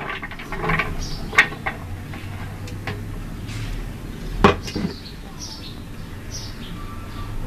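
Garlic cloves and ginger pieces tipped from a plate into a plastic blender jar, clattering, with two sharp knocks about one and a half and four and a half seconds in.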